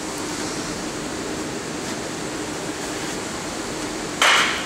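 Steady room hiss with a faint low hum, broken about four seconds in by one short burst of noise.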